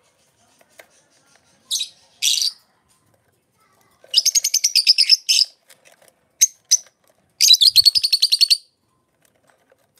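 Lovebirds chattering: two short shrill calls, then two bursts of rapid chirping, each a little over a second long, with a couple of single chirps between them.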